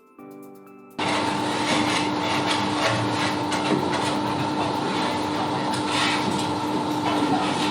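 Factory machinery running with a steady hum and a dense rattling clatter, starting abruptly about a second in after a faint tail of music.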